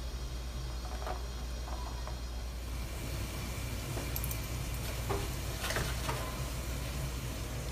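Kitchen background noise: a steady low hum, joined about three seconds in by a steady hiss, with a few faint clicks.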